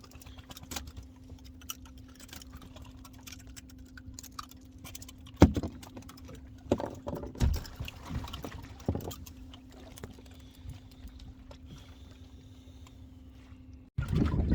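Scattered clicks and knocks of handling on a fishing boat deck over a steady low hum, with the loudest knock about five seconds in.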